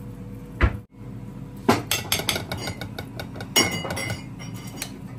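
A spoon clinking and knocking against dishes as creamy mashed potato is served onto plates: a string of sharp clinks.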